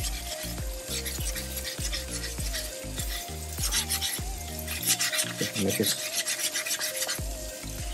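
Fine sanding sponge rubbed rapidly back and forth against the plaster base of a dental stone cast, a scratchy rasping in quick repeated strokes that grows busiest and loudest past the middle.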